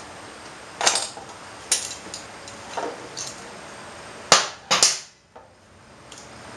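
Several sharp knocks and clacks at uneven intervals from hard parts and tools being handled as a motorcycle's coolant reservoir is worked loose. The two loudest come close together about four and a half seconds in.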